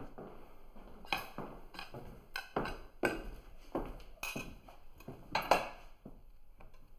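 Metal spoon scraping and clinking against a ceramic dinner plate in a run of short, separate strokes, the last and loudest at about five and a half seconds.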